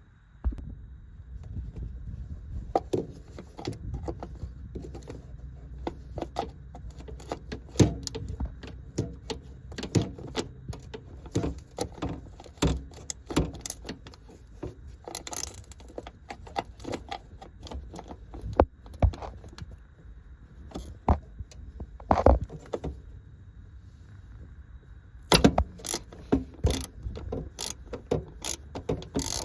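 Irregular metallic clicks, clinks and knocks of hand tools working on a car, in scattered strokes with a quicker cluster near the end, over a steady low rumble.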